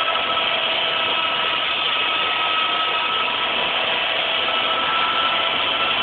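Titan 450 electric RC helicopter hovering: a steady whine from the motor and gears over the whir of the rotor blades.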